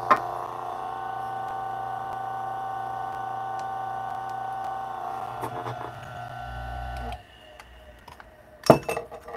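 DF64 flat-burr espresso grinder running with a steady whine as it grinds a dose of coffee, then switching off abruptly about seven seconds in. A few light clicks and knocks follow near the end.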